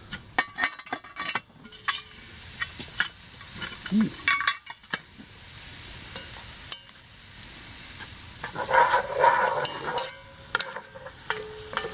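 Diced onions, sausage and vegetables sizzling in a cast-iron Dutch oven and being stirred and scraped with a wooden spoon. They are frying until the onions turn translucent. A few sharp clinks come in the first second and a half, and the scraping gets louder about nine seconds in.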